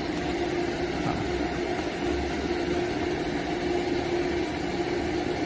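Steady hum of running machinery, an even rumble with one constant tone held throughout.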